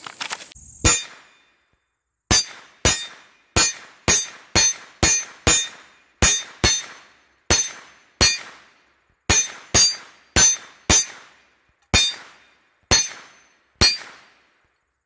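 Rounds striking a hanging steel target one after another, about nineteen hits at an uneven pace. Each hit gives a sharp clang and a short metallic ring.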